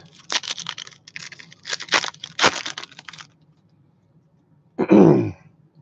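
A baseball card pack's wrapper being torn open and crinkled, a run of crackling tears lasting about three seconds. About five seconds in comes one short sound that falls in pitch.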